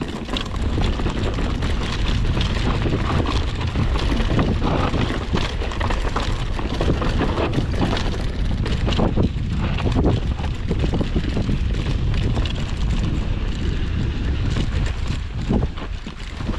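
Mountain bike running fast down a dry dirt and rock trail: wind buffeting the microphone, tyres rolling over loose dirt and stones, and frequent knocks and rattles from the bike over the bumps.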